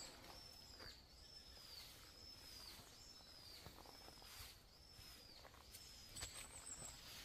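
A bird's thin, high whistled note repeated at an even pace, a little more than once a second, each note slightly arched and dropping at its end. Faint, scattered rustles of dry leaves are under it.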